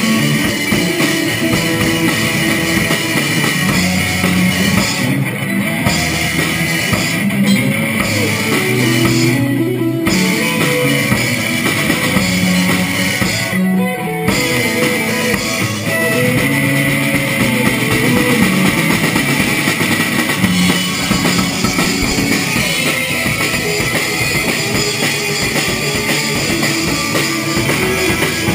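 Rock band playing: electric guitars and bass over a drum kit, at a steady loud level.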